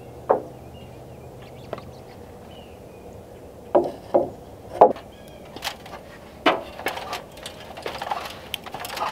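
Irregular knocks and thuds of lumber boards, a dozen or so at uneven spacing. The loudest come about four to five seconds in, with a busier run of smaller knocks near the end.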